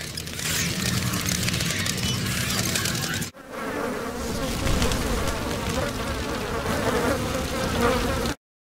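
A swarm of bees buzzing, dense and continuous, with a brief break about three seconds in and an abrupt stop just before the end.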